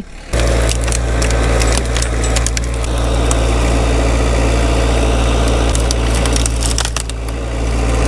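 Vermeer stand-on mini skid steer running steadily while it drives into and crushes a pile of dry dead branches, with a dense crackle of snapping wood over the engine's low hum.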